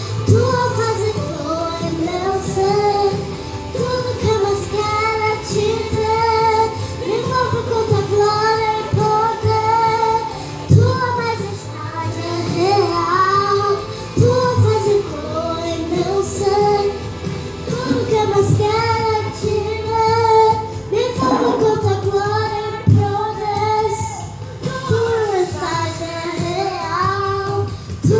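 A young girl singing a Brazilian gospel song into a microphone over a backing track with a steady beat.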